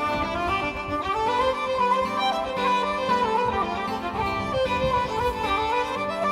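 Background music led by a fiddle melody over a steady accompaniment.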